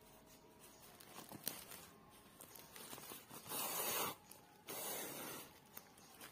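Yarn being drawn with a needle through woven plastic sack material: two scratchy pulls, about three and a half and five seconds in, with a few faint small ticks of the needle on the sack.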